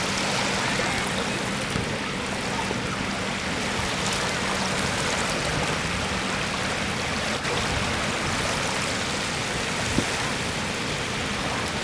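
Small waves rippling and lapping in shallow water at the shore, a steady rush of water noise. A faint steady low hum runs underneath.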